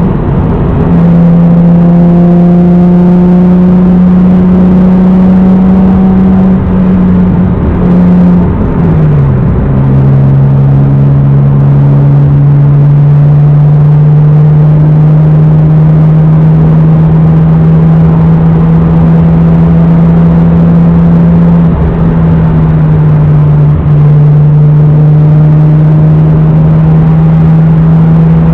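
1993 Toyota Supra's naturally aspirated 3.0-litre inline-six, with an aftermarket exhaust and K&N cold air intake, droning steadily at cruising revs, heard from inside the car. The pitch slides down right at the start and again about nine seconds in as the revs fall, then holds steady at the lower pitch.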